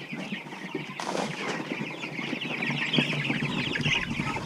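A crowded flock of chicks peeping: many short, high chirps overlapping nonstop, growing denser and louder after the first couple of seconds, over light rustling with an occasional knock.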